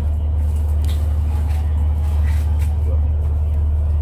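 A steady low engine drone runs without change, with faint scattered knocks on top.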